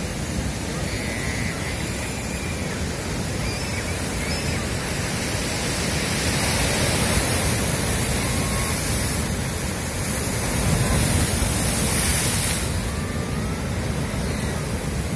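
Heavy surf on a rough sea: waves breaking and washing over rocks and stone jetties in a continuous rush. It swells louder a little past the middle and again around eleven seconds in.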